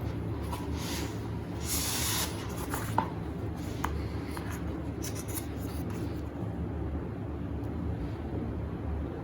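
Light brushing and rubbing handling sounds over a steady low hum, with a louder brush about two seconds in and two small sharp clicks shortly after.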